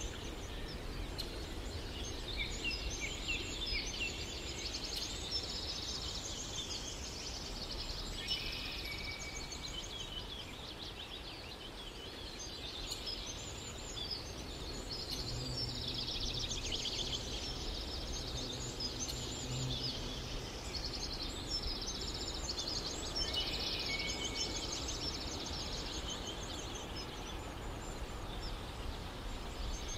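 Several small songbirds chirping and trilling without pause, their rapid high calls overlapping over a steady low background hiss.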